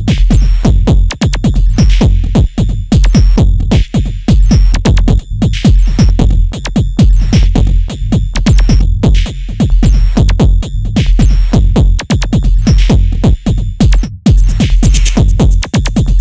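Electronic techno music: a heavy, sustained bass under dense, rapid clicking percussion. It cuts out for a split second about fourteen seconds in.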